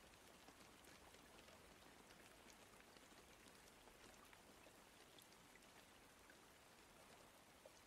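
Faint, steady rain, with scattered ticks of single drops.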